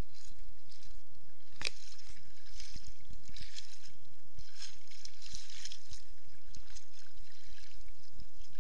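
Shallow seawater sloshing and splashing in irregular bursts around a person wading in. A single sharp click comes a little under two seconds in.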